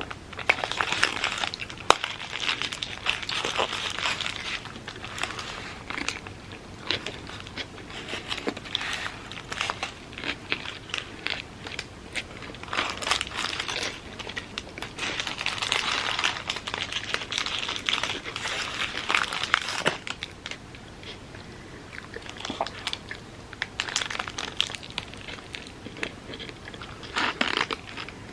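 Close-miked eating sounds: biting and chewing with bursts of crinkling and crackling, strongest near the start, through the middle stretch and briefly near the end.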